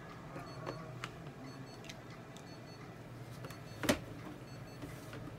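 Veterinary exam room background: a steady low equipment hum with faint short high beeps and scattered small handling clicks, and one sharp knock about four seconds in.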